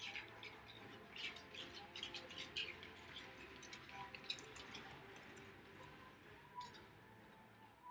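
Faint short scrapes and high chirps of short-track speed skate blades on ice, many in quick succession in the first half and fewer later, over a faint steady hum.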